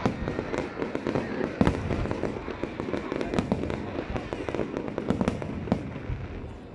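Aerial firework shells bursting in quick succession: a run of sharp bangs over continuous crackling. The loudest bang comes about one and a half seconds in.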